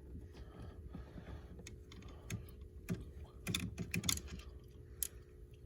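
Scattered light clicks and taps of a Phillips screwdriver working small screws out of a steering-column plate, with a few slightly louder knocks about the middle.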